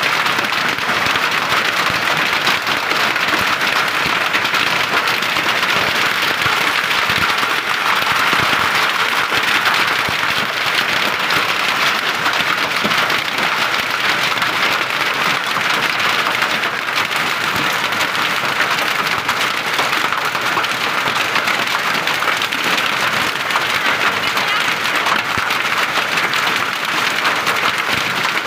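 Hailstorm with heavy rain: rain and hailstones falling steadily on wet soil, leaves and a ploughed field, a dense unbroken hiss of countless small hits.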